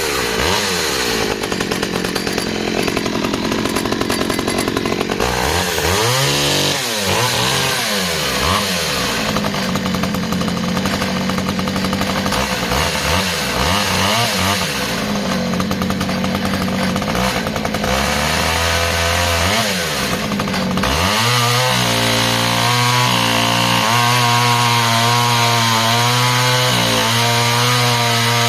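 Stihl 009 top-handle chainsaw's small two-stroke engine revving up and down again and again, then settling to a lower, steadier note in the last third as the chain cuts into dry timber.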